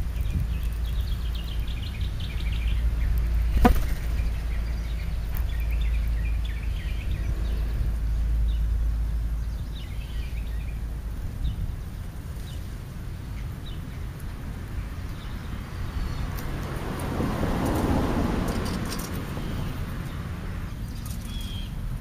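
Outdoor backyard ambience with birds chirping faintly now and then over a low rumble, a single sharp click about four seconds in, and a swell of rushing noise that rises and falls about three-quarters of the way through.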